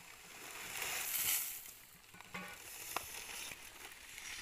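Loose dry material hissing and rustling as it is shaken and tipped from a plastic tray, loudest about a second in, with a single sharp tick about three seconds in.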